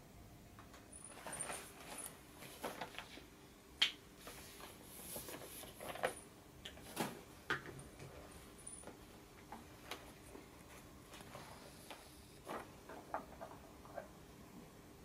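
Faint, scattered soft taps and rustles with a few sharper clicks, from a pet owl moving about at a roll of bubble wrap, over a low steady room hum.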